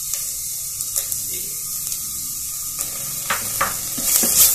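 Onions with crushed ginger and garlic sizzling in oil in an unglazed clay pot (manchatti), stirred with a wooden spatula that scrapes and knocks against the pot. The stirring strokes get louder near the end.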